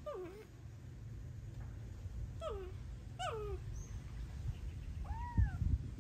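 Tabby kitten meowing: four thin, short meows, the first three falling in pitch and the last rising then falling. A low thump near the end.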